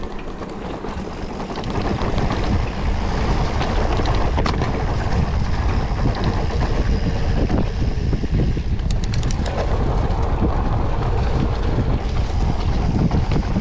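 Wind buffeting the camera's microphone and the rumble and rattle of a mountain bike rolling fast over a dirt trail, growing louder about two seconds in as the bike picks up speed. A few sharp clicks come through now and then.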